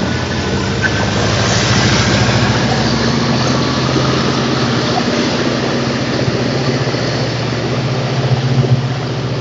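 Long Island Rail Road train at the station, running with a steady low engine hum over an even rushing noise.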